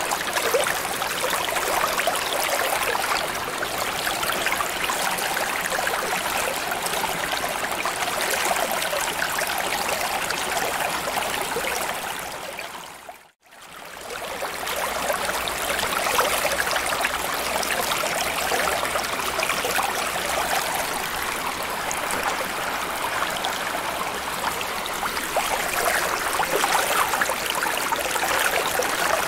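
Continuous flowing, trickling water ambience, a steady rushing hiss with fine crackle and little low end. About thirteen seconds in it fades briefly to silence and straight back up.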